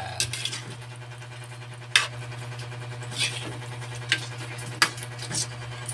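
Spatula scraping and knocking against a metal wok while stirring chicken and pineapple chunks in simmering liquid, several short scrapes at uneven intervals over a steady low hum.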